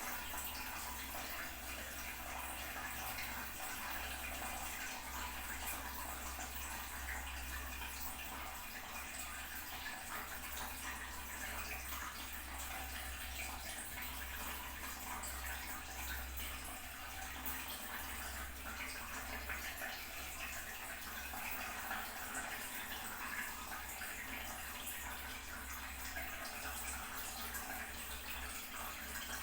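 Toilet cistern refilling: water runs steadily through the fill valve into the tank, an even hiss in a small room.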